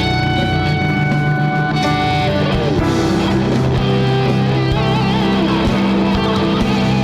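Electric guitar solo over the band's backing, with long held notes, a slide down in pitch about two and a half seconds in, and wavering vibrato notes after it.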